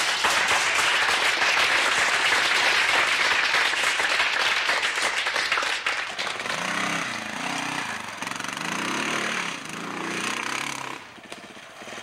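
Honda XR dirt bike's single-cylinder four-stroke engine revving hard, with a loud, rough, noisy sound for about the first six seconds. After that the revs rise and fall several times before dropping away near the end.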